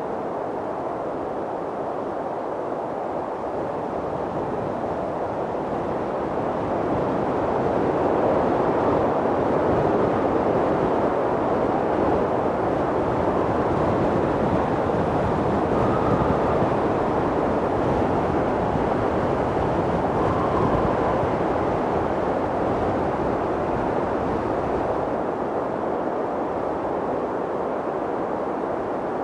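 Strong mountain wind blowing, a steady rushing noise that swells in a long gust partway through and eases off again toward the end.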